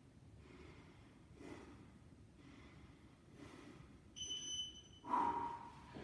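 Heavy, rhythmic breathing during a strained abdominal hold, about one breath a second. About four seconds in, a high electronic beep sounds for about half a second, and just after it comes a loud voiced exhale as he lets go of the hold.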